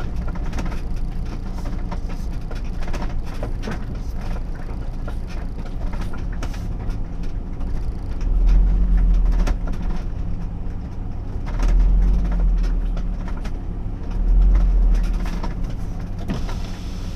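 Motorhome driving slowly, its engine running steadily while loose fittings rattle and knock many times. A deeper low rumble swells up three times, about eight, eleven and fourteen seconds in.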